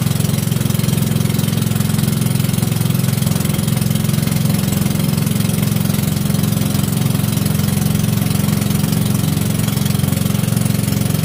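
Small engine of a motorized outrigger canoe (bangka) running steadily underway, a loud, even, rapid low chugging with a constant hiss over it.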